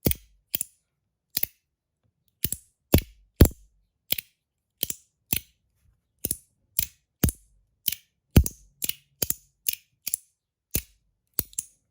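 Stainless steel EDC pod slider fidget snapping open and shut by hand: a string of sharp, loud metallic clicks at uneven spacing, about two a second, some with a short low thud.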